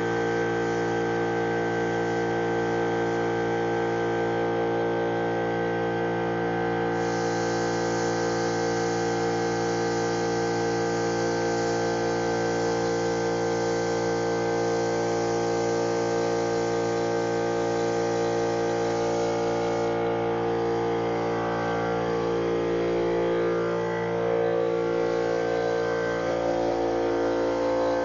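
Air-fed paint spray gun hissing as it sprays, switching on abruptly about seven seconds in and shutting off about twenty seconds in. Under it runs a steady machine hum with several even tones.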